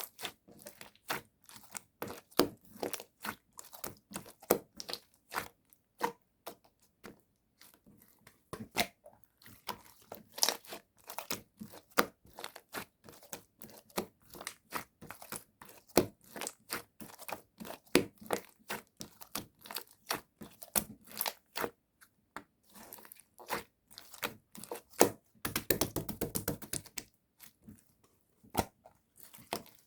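Translucent jelly slime being squeezed and stretched by hand, giving a rapid, irregular run of sticky clicks and pops, thickest a few seconds before the end.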